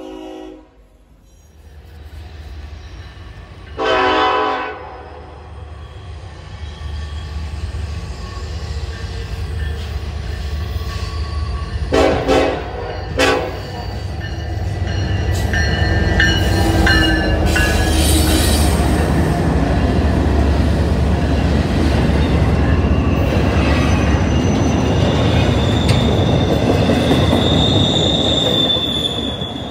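A diesel locomotive horn blows one blast about four seconds in, then two short blasts about eight seconds later as the train approaches. Then a freight train passes close by: a low rumble of wheels on rail that grows loud and stays steady, with a high wheel squeal near the end.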